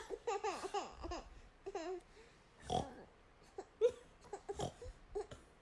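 A baby babbling with gliding, wavering sounds, then making about three short snore-like snorts in imitation of snoring.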